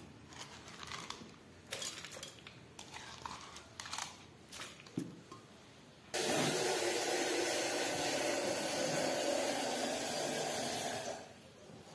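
Light clicks and rustles of ingredients dropped into an aluminium pressure cooker, then about six seconds in a steady rush of water pouring in for around five seconds before it stops.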